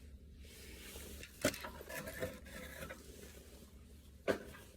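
Quiet handling of small plastic thermostat parts: two sharp clicks, about a second and a half in and near the end, with faint rustling and clinking between.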